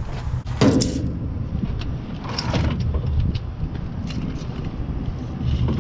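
Metallic clinks and jangles from a semi-truck's 3-in-1 air and electrical lines being handled and routed: brass glad-hand fittings and coiled spring guards knocking together, the loudest clink about a second in. A steady low engine hum runs underneath.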